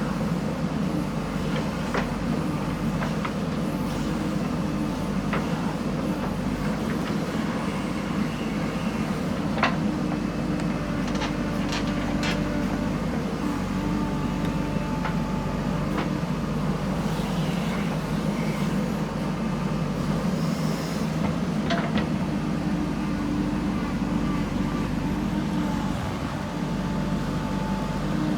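Diesel engine of a JCB backhoe loader running steadily while it digs and loads soil, with a faint whine that comes and goes and sharp knocks now and then.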